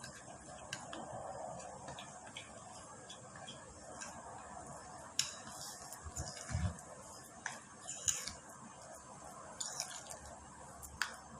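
Scattered light clicks and knocks at irregular intervals, with a dull thump about six and a half seconds in, over a steady low background noise.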